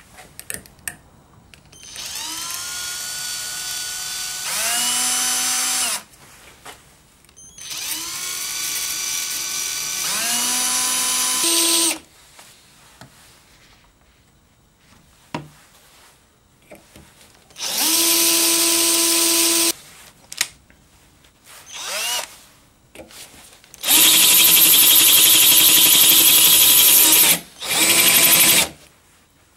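Cordless drill boring a hole in a glass bottle, run in about six separate bursts. Each burst starts with a whine that climbs as the motor spins up. The first two runs step up to a higher speed partway through, and the bursts later on are the loudest.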